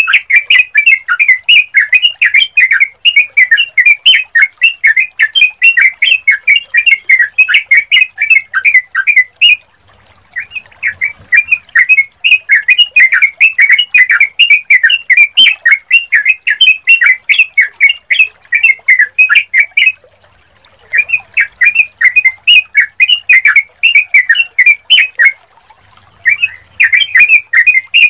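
Yellow-vented bulbul (trucukan) singing: loud, rapid runs of short, bubbly chattering notes, several a second. It sings in long bouts, broken by brief pauses about a third of the way in, near two-thirds, and shortly before the end.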